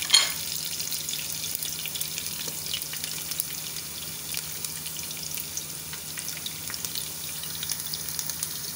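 Sliced red onions frying in a cup of hot oil: a steady sizzling hiss with dense fine crackling, the onions freshly put in and not yet browning. A brief louder burst comes just after the start.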